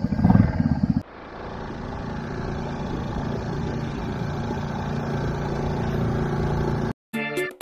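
Small outboard motor pushing a dinghy, running with a fast, even pulsing beat for the first second, then changing abruptly to a steadier drone that slowly builds. Music starts just before the end.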